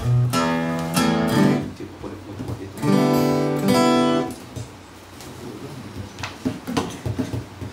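Two acoustic guitars strumming the closing bars of a song, ending on a final strummed chord about three seconds in that rings for over a second. After that it is quieter, with a few small knocks as the guitars are handled.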